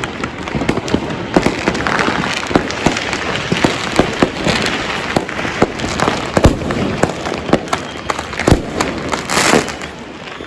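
Dense, continuous fireworks and firecrackers: a steady crackle of many small bangs with louder booms standing out, and a brief hissing swell near the end.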